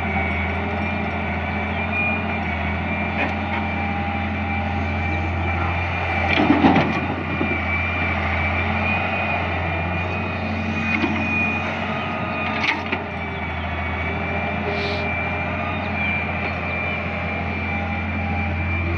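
Excavator's diesel engine running steadily with a steady high whine over it, and a few short knocks as it works; the loudest knock comes about six and a half seconds in.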